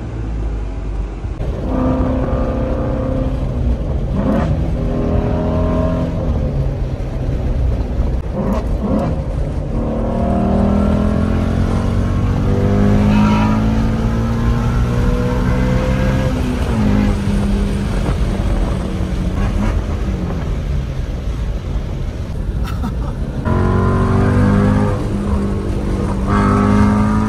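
Ford Mustang Shelby GT350's 5.2-litre flat-plane-crank V8 heard from inside the cabin under hard acceleration, its pitch climbing through the revs several times and dropping back at each gear change.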